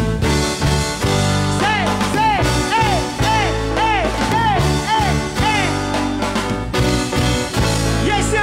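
Live band music: drum kit, electric bass, electric guitar and keyboard playing together with a man singing lead into a microphone. In the middle a phrase of short notes that each rise and fall in pitch repeats about twice a second.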